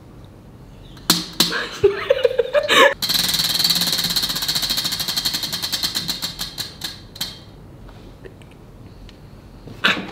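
Tabletop prize wheel spun by hand: a few loud knocks as it is grabbed and pushed, then its pointer clicking rapidly over the pegs, the clicks spacing out over about four seconds as the wheel slows, until it stops.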